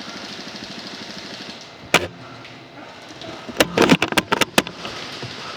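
A single sharp shot from a Maruzen Type 96 spring-powered bolt-action airsoft sniper rifle about two seconds in, followed about a second and a half later by a quick run of four or five clicks and knocks, over a steady high hiss.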